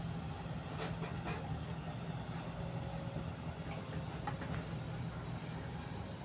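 Kobelco SK130 excavator's diesel engine running steadily, with a few light knocks.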